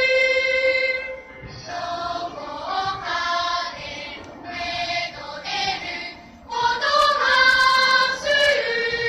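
Children's choir singing. A held note ends about a second in, a softer passage of shorter notes follows, and the choir comes back loud on long held notes about two-thirds of the way through.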